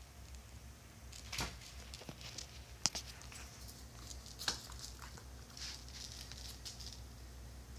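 Small puppy's claws clicking and scrabbling on a tile floor as it chases a dangled cat toy, with a few sharper taps: three louder ones, the loudest about three seconds in, and a flurry of light scratchy ticks near the end.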